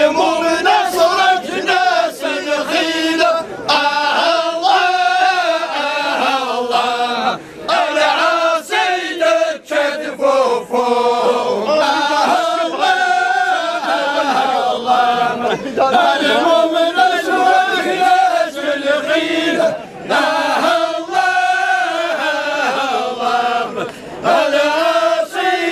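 A group of men chanting a Kabyle Sufi dhikr in unison with no instruments, holding long wavering melodic lines with brief breaks for breath.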